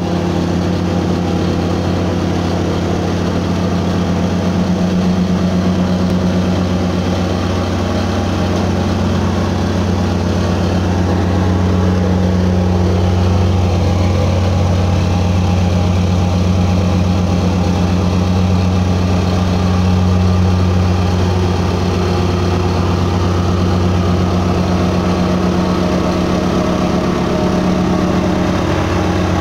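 Plate compactor's small petrol engine running steadily at working speed, its vibrating plate driven over sand-covered interlocking concrete pavers to bed them in. A continuous, even low drone with no pauses.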